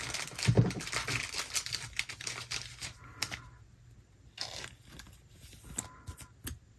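Trading cards and pack wrapper being handled and sorted by hand: papery rustling and crinkling, busy for the first three seconds or so, then a few scattered light taps and rustles.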